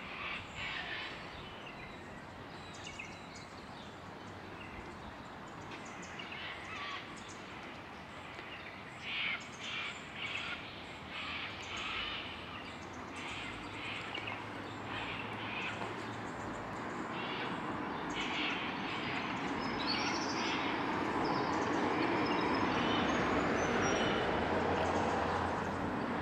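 Birds calling now and then, several short calls, over a steady outdoor hiss that grows louder in the last several seconds.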